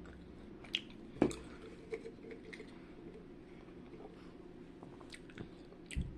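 A gummy candy ring being chewed: faint, soft, wet chewing with scattered small mouth clicks, and a sharper click about a second in and again near the end.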